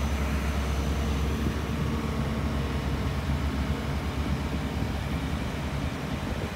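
Caterpillar 725 articulated dump truck's C11 diesel engine running steadily while the hydraulic hoist raises the tipping body.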